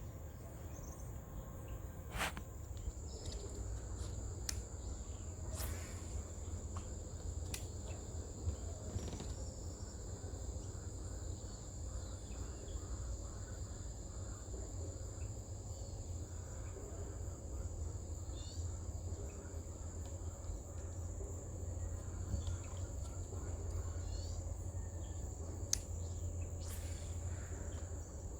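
Steady high-pitched buzz of insects, cricket-like, over a low rumble, with a few scattered sharp clicks.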